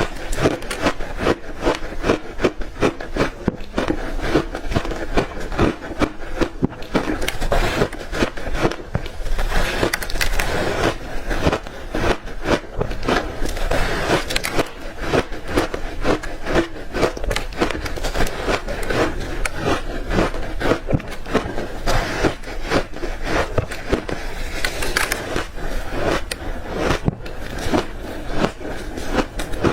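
Close-miked crunching of frozen ice chunks coated in matcha powder being bitten and chewed: a dense, unbroken run of sharp cracks and crunches.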